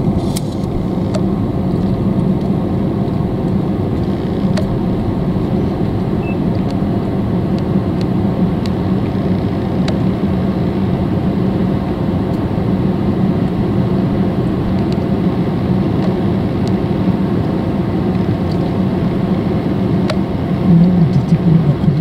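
Car engine running with a steady low hum, heard from inside the cabin. A few faint ticks sound over it.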